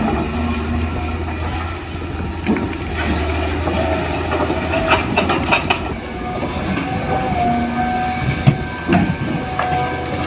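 Toy RC excavator's small electric motors whirring, a whine that shifts in pitch and stops and starts, with scattered sharp plastic clicks and rattles over a steady low hum.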